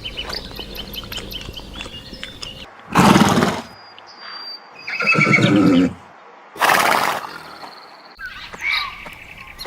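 Horse neighing, with three loud calls between about three and seven seconds in, the middle one a pitched whinny.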